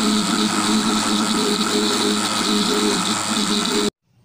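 Electric blender motor running steadily at speed, blending eggs, vinegar and oil into mayonnaise; the sound cuts off abruptly near the end.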